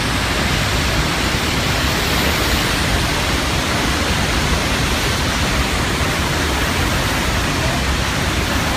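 Steady, loud rush of the Horseshoe Falls at Niagara, a massive waterfall heard close up, its water crashing into the river at the base.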